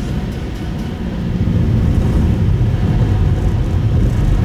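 Steady low rumble of a Subaru Impreza Sport's road and engine noise heard inside the cabin while driving. It gets somewhat louder about a second and a half in.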